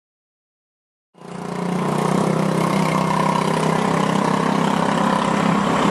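A steady mechanical drone over a street-noise hiss, fading in about a second in and then holding level.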